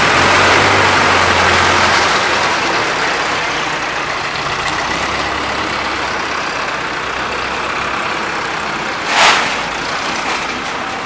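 Mobile crane's diesel engine running steadily at idle, its low drone strongest in the first two seconds, with one short hiss about nine seconds in.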